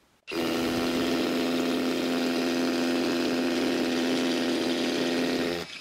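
Hilti Nuron TE 4-22 cordless SDS rotary hammer drill boring a hole into a concrete block in hammer mode. It starts about a third of a second in, runs steadily at full load for about five seconds, and stops shortly before the end.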